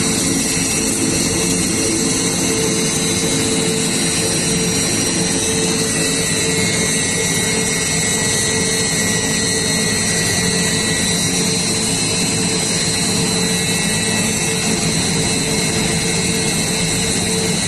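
Model 600 double-shaft shredder running steadily while shredding plastic plate: an even, unbroken machine noise with a constant hum.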